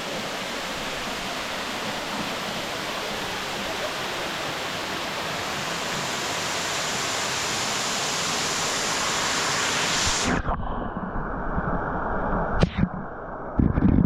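Steady rush of falling or running water, growing slowly louder. About ten seconds in it cuts off abruptly to a duller low rumble with a few sharp knocks near the end.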